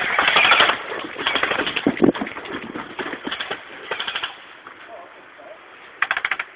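Airsoft guns firing on full auto in short bursts of rapid, evenly spaced shots, several volleys with gaps between them.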